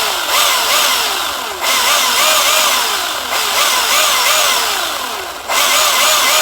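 A loud, chainsaw-like motor whine whose pitch rises and falls over and over in quick cycles, edited into sections that cut in abruptly, about a second and a half and five and a half seconds in.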